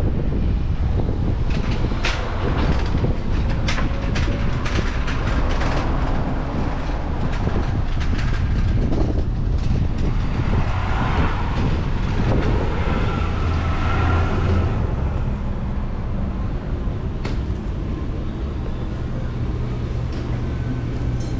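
Outdoor city street noise: a steady low rumble of passing traffic, with scattered sharp clicks and knocks in the first half. It settles into a steadier low hum near the end.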